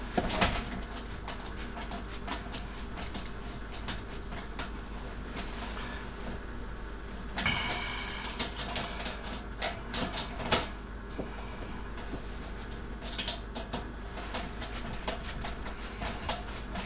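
Screwdriver turning shoulder bolts on a steel breaker-panel cover and interlock bracket: irregular light clicks, ticks and scrapes of metal on metal. A brief high squeal about seven and a half seconds in.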